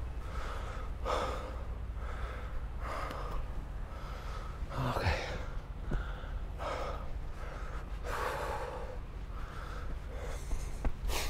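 The longboarder breathing hard and rhythmically, a puff of breath about every second, over the steady low rumble of longboard wheels rolling on pavement.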